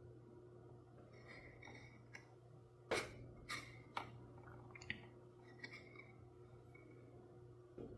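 Quiet handling of toy packaging and plastic figures: a few sharp clicks and brief plastic scrapes, the loudest about three seconds in, over a steady low hum.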